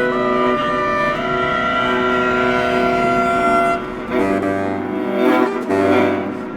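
Viola and baritone saxophone playing contemporary chamber music: long held notes that shift pitch, then from about four seconds in, short accented, rougher attacks repeated roughly once a second.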